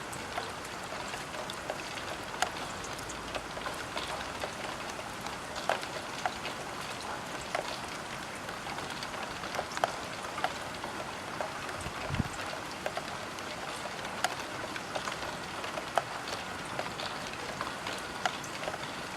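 Steady spring rain on a roof window, with individual drops ticking sharply on the glass over a constant patter. There is a brief low thump about twelve seconds in.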